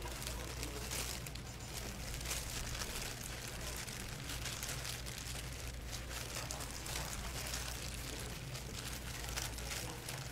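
Thin disposable plastic gloves crinkling and rustling as hands lay fillings on rice and laver and roll kimbap, a continuous fine crackle over a steady low hum.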